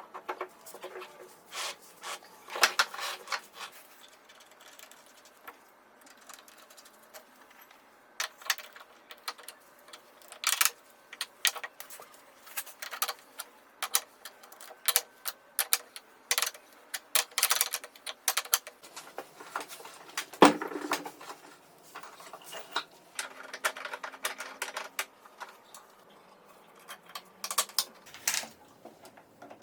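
Irregular clicks, taps and light knocks of parts and tools being handled and fitted together, with one sharper knock about two-thirds of the way through.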